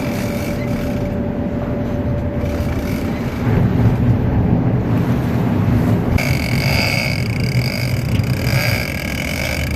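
Sport-fishing boat's engine running steadily, with a high steady whine joining about six seconds in.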